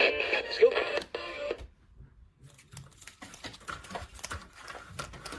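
Television or radio programme audio, speech over music, cuts off abruptly about a second and a half in. After a brief near-silent gap comes a run of irregular small clicks and rattles, like handling noise.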